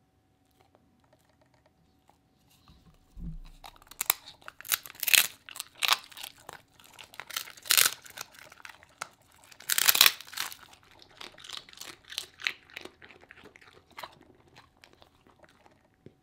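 A corgi crunching and chewing a dried cod skin dog treat: a quick run of sharp, dry crunches that starts a few seconds in, is loudest in the middle and thins out near the end.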